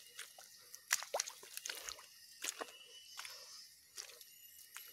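Footsteps squelching through wet swamp mud and weeds: irregular soft wet squishes and clicks.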